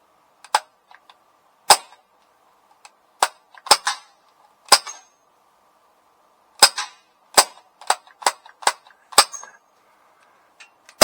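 Crosman C11 CO2 BB pistol firing semi-automatic, about a dozen sharp cracks at an uneven pace, some in quick pairs.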